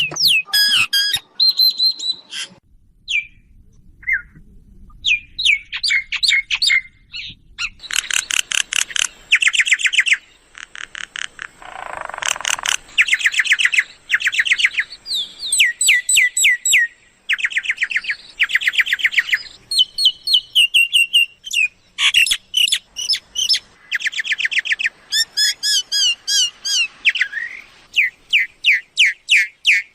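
A myna calling in quick bouts of rapid chattering notes, whistles and squawks, many sliding down in pitch, repeated with short pauses between phrases.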